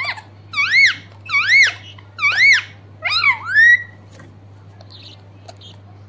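Rose-ringed parakeet giving four loud calls in quick succession, each rising then falling in pitch, the fourth longer and ending on an upward glide. Only a few faint soft ticks follow.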